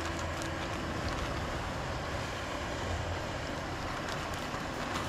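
Yellowtail snapper frying in a small pan of oil, a steady sizzle, with wind rumbling on the microphone.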